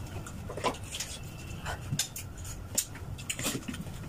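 Two people eating pork ribs by hand: wet chewing, lip-smacking and gnawing on the bones, in short irregular bursts.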